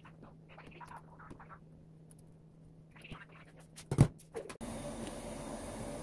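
Faint soft rustles and small taps as halved cherry tomatoes are set onto rocket leaves in a ceramic bowl, then a single sharp knock about four seconds in. Just after the knock, a steady, even rush of noise starts abruptly.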